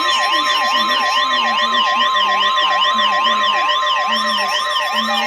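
Emergency alert tones playing at once: a steady alert tone held under a fast siren-like warble that sweeps up and down about three times a second. Right at the end the steady tone cuts off and a lower steady tone starts.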